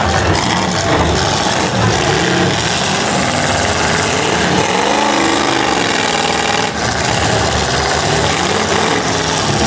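Several demolition-derby cars' engines running hard together, the pitch sweeping up and back down around the middle as they rev while pushing against each other.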